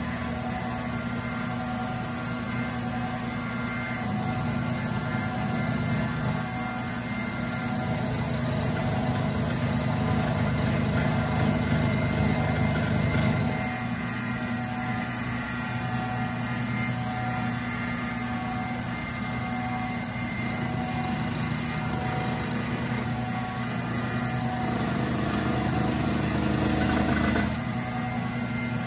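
Chinese-made milling machine running, its spindle turning a cutter through a light facing pass across an aluminium block. The steady machine sound drops in level about halfway through and again near the end as the cut changes.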